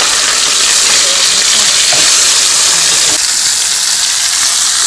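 Whole crucian carp frying in hot oil in a pan, a loud steady sizzle that eases slightly about three seconds in.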